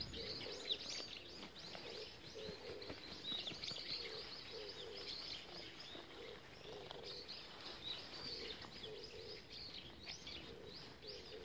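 Small birds chirping and twittering in the trees, with low, soft cooing notes repeating throughout.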